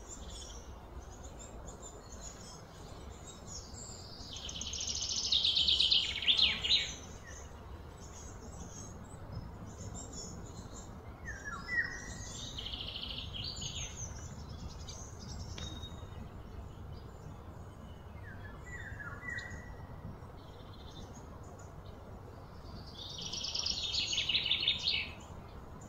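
Outdoor birdsong: three loud, rapidly trilled high bursts, each building for a couple of seconds and then stopping, with short falling chirps in between over a steady low background hum.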